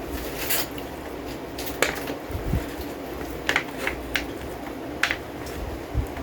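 Scattered light clicks and taps of a cooking utensil against a pan, several seconds apart, over a steady low background.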